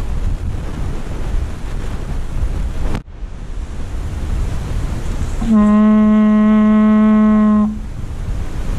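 Hunter's horn blown in one steady, held note of about two seconds, starting a little past halfway, a call to the hounds. Wind rumbles on the microphone throughout.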